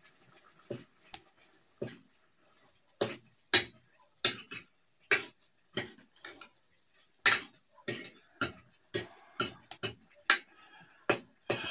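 Metal spatula clinking and scraping against a wok as food is stirred, in short irregular strokes that come faster in the second half.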